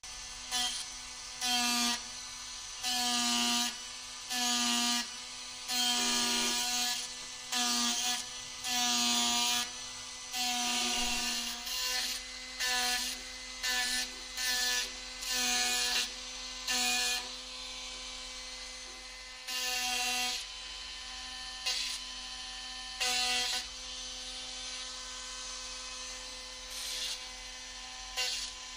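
Handheld rotary power carver running with a steady whine while its bit cuts into maple in short passes. Each pass brings a louder grinding burst, about one every second or two, with the bursts growing sparser in the last part.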